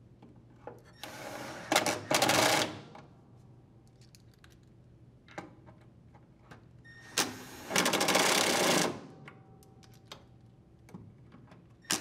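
Milwaukee cordless drill/driver driving screws into the drain pump's mounting on a plastic washer tub. It runs in two bursts, a short one and then a longer one about a second in, and a run of about two seconds some seven seconds in, with small clicks of handling in between.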